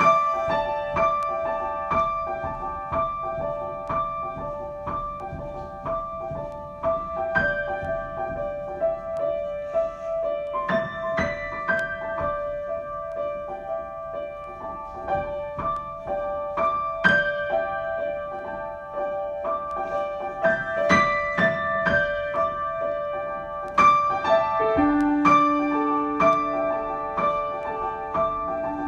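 Solo piano improvisation: a quick repeated figure in the middle register with higher notes struck over it, and held lower notes coming in near the end.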